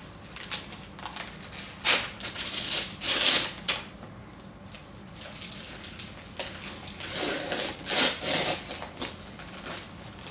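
Wrapping paper being torn and rustled off a present by hand, in several short ripping bursts. The loudest come about two to three and a half seconds in and again around seven to eight seconds in.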